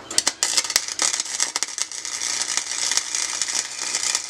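MIG welding arc crackling as the wire-feed gun lays a bead on steel scrap engine parts. A few short stuttering starts, then one steady run of about three seconds that cuts off abruptly when the trigger is released.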